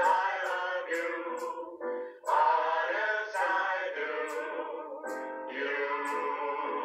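Several voices singing a 1920s popular tune together, with a light ticking beat about two to three times a second. It is heard through a television set's speaker.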